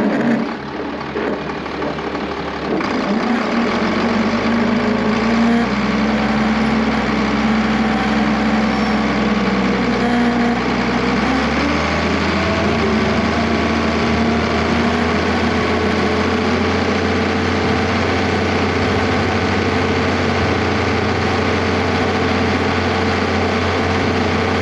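Tractor engine running steadily under load, pulling a disc through plowed ground; its pitch shifts slightly a few seconds in and again about halfway through.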